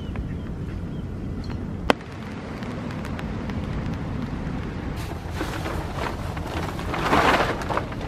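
Rustling of tarp fabric and a plastic groundsheet being handled during pitching, growing from about halfway and loudest near the end. It sits over a steady low rumble, with one sharp click about two seconds in.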